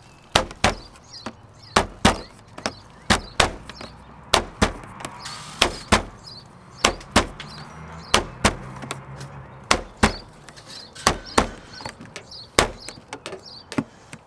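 Mallet blows on a flat, hard block driving a vinyl sill extender into the window sill's groove: a steady run of sharp knocks, about two a second, with the extender snapping as it seats.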